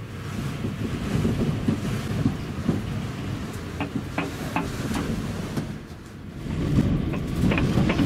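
Gusty wind buffeting a Class C motorhome: a low, rumbling rush that rises and falls with the gusts, easing about six seconds in and then gusting back up, with a few sharp clicks and rattles from the rig.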